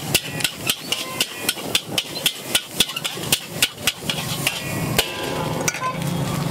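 A steel ladle strikes and scrapes a large iron wok while fried rice is stir-fried, in quick clangs about four a second. The clangs stop a little after four seconds, with one or two more after.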